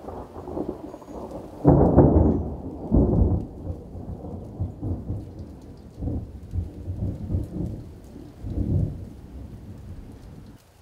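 Thunder from a cloud-to-ground lightning strike in thundersnow. The rumble builds, peaks in a loud peal about two seconds in, then rolls on in a series of rumbles for several more seconds before dying down.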